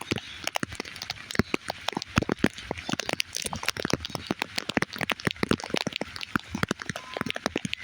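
Rain falling on a surface: many irregular drops striking, heard as dense, uneven taps of varying loudness over a steady hiss of rain.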